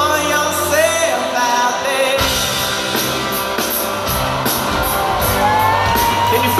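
Rock band playing live, with a male lead vocal sung over keyboard; about two seconds in, bass and a steady beat come in and the band fills out.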